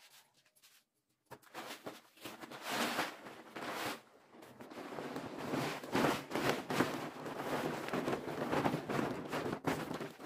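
Woven plastic tarpaulins rustling and crackling as they are dragged and folded over drying rice, starting about a second in and going on in uneven surges.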